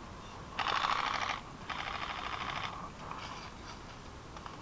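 Airsoft rifles firing on full auto: three short bursts of rapid clicking, each under a second long, the last one fainter.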